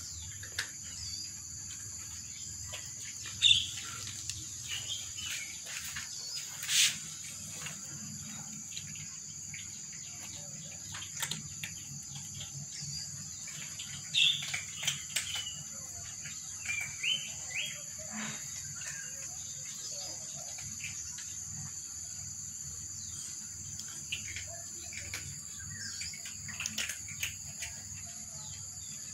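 Cats eating dry kibble, with scattered small crunches and clicks, over a steady high insect drone and occasional short high chirps.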